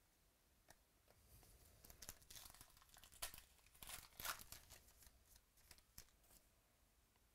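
Foil wrapper of a 2018 Stars & Stripes baseball card pack being torn open by hand: a run of soft crinkling rips over a few seconds, loudest about halfway through.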